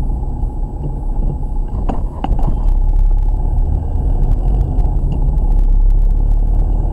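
Steady low rumble of a car's engine and tyres while driving slowly, heard from inside the cabin through a dashcam's microphone, with a cluster of light clicks and rattles about two seconds in.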